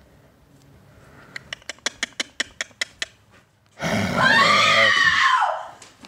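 A woman screaming in fright: one long, loud scream that falls in pitch as it ends. It is preceded by a quick run of about a dozen sharp clicks.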